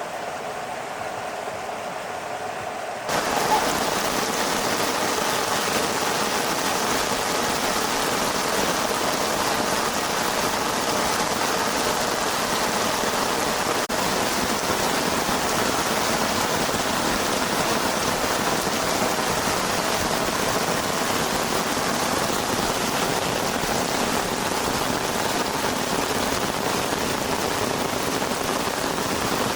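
Heavy rain falling steadily, a dense even hiss of many drops. It comes in abruptly about three seconds in, after a softer, quieter stretch of rain.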